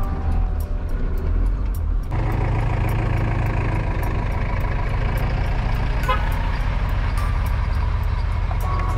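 Steady low engine and road rumble of a vehicle on the move, changing abruptly about two seconds in.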